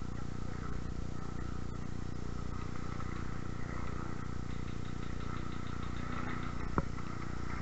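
Steady low rumble and rustling of a body-worn camera on the move, with one sharp click about seven seconds in.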